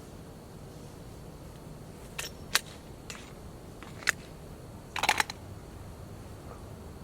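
A handful of sharp, short clicks and knocks spread over a few seconds, with a tight cluster of three about five seconds in.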